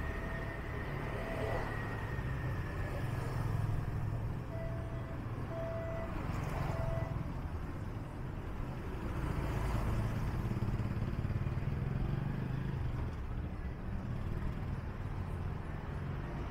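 Street traffic: cars and motorcycles running by with a steady low rumble, and a few short beeps around five to seven seconds in.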